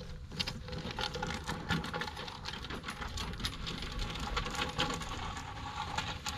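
Walk-behind drop spreader rolling over bare soil, its wheels and mechanism rattling with rapid, irregular clicking.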